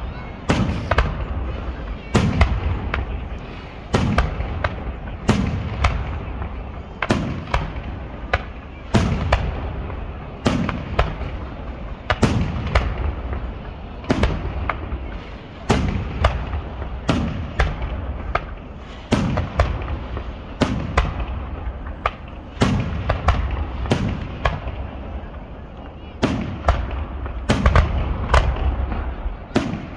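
Fireworks display: a rapid, continuous series of aerial shell bursts, sharp bangs about one to two a second, each followed by a rumbling echo.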